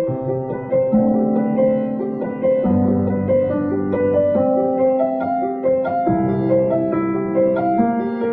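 Background piano music: a melody of short notes over held bass notes.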